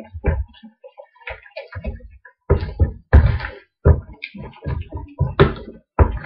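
A hand squishing and slapping chicken pieces through a thick yogurt marinade in a bowl: a run of irregular wet squelches and dull knocks.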